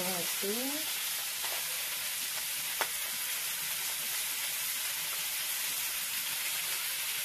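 Small fish frying in oil in a black iron kadai: a steady sizzle throughout, with one sharp tick about three seconds in.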